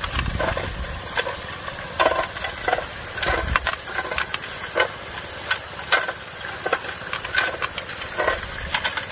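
Gold Fox trommel running: rocks and gravel clattering in the turning drum under the water spray, irregular knocks over a steady hiss.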